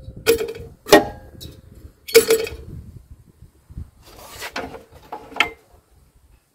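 A metal exhaust muffler being handled and fitted onto a tractor engine: about five sharp metal clanks and scrapes, each ringing briefly, the last just past five seconds in.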